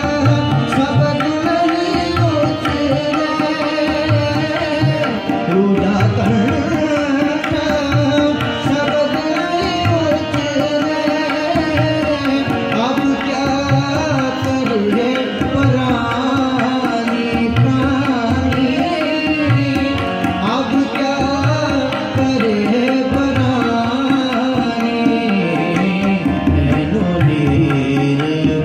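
Gurbani kirtan: harmonium drones the melody while a tabla keeps a steady beat, with a voice singing over them in smoothly gliding phrases.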